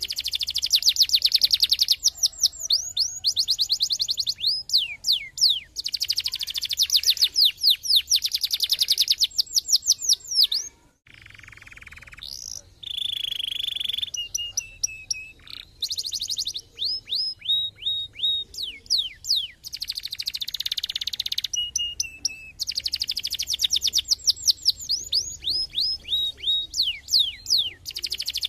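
Domestic canary singing a long song of fast trills, each trill a rapid run of falling chirps. About 11 seconds in the song breaks off briefly, then comes back with a few held whistled notes before the fast trills return.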